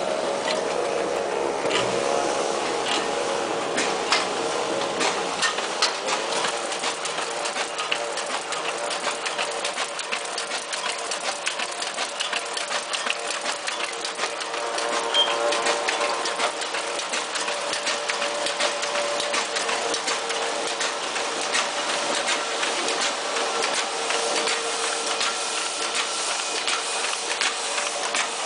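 Sheet-fed printing press running at speed: a steady mechanical clatter of rapid clicks over a constant hum.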